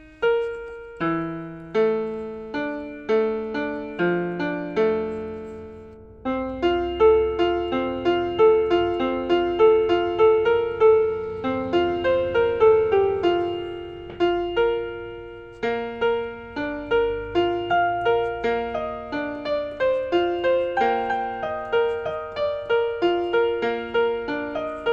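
Piano music: a melody of struck, decaying notes over moving lower notes, getting louder about six seconds in.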